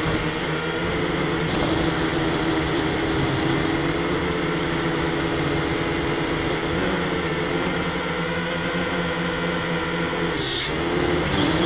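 DFD F183DH toy quadcopter's motors and propellers whining steadily, heard close up from the drone's own camera. The pitch dips briefly and comes back up near the end as the throttle changes.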